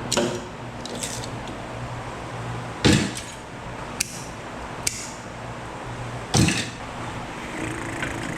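Metal parts knocking and clanking as a machine cabinet is dismantled by hand: about five sharp knocks, the loudest about three seconds in and near the end, over a steady low hum.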